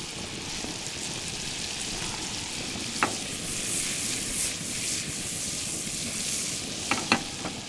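Chunks of burbot sizzling in butter in a nonstick frying pan on a camp stove, the sizzle swelling as the pan is tossed midway. A sharp knock comes about three seconds in and a few clinks near the end.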